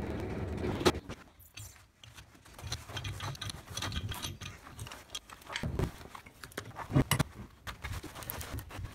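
A black cast nut being twisted by gloved hands along a threaded leadscrew, with irregular clicks, creaks and scraping of the nut on the thread and the clamped metal. A sharp knock comes about a second in.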